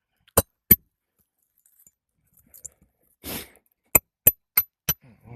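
Hammer striking a steel roof snake slid under the shingles to pull a roofing nail, in sharp ringing clinks: two early on, then a run of four at about three a second near the end. A short scrape comes about three seconds in.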